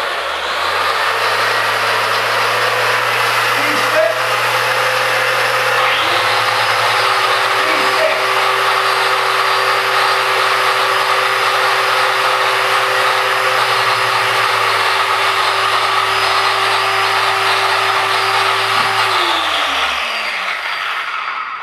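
Two electric random orbital (dual-action) car polishers, a 3D HD and a Shurhold, running free in the air side by side. One starts at once and the second joins about six seconds in. Both run steadily, then wind down with a falling whine just before the end. The 3D HD is said to be definitely louder.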